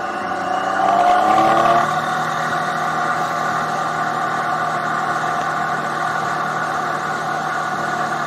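Triumph Tiger 800 XRt's three-cylinder engine accelerating, its revs climbing for about two seconds, then holding steady at cruising speed.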